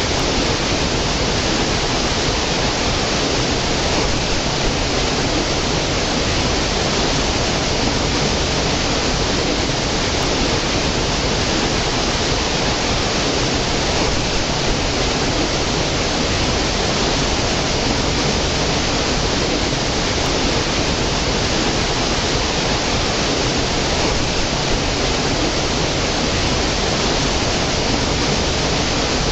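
Small stream cascading over rocks into a pool: a steady, unbroken rush of water.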